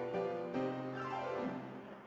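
Background music: plucked keyboard notes in the manner of a harpsichord, with a falling run of notes a little past halfway before it fades out near the end.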